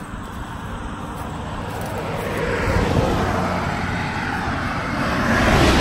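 A passing motor vehicle, its engine and tyre noise swelling steadily over a few seconds as it approaches and loudest near the end.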